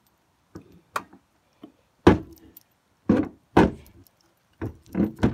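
Footsteps crunching in snow, a step every half second or so, some heavier than others.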